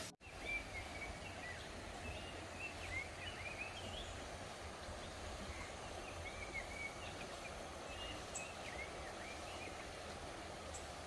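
Outdoor ambience: a steady background hiss with birds chirping faintly throughout in short, repeated call notes.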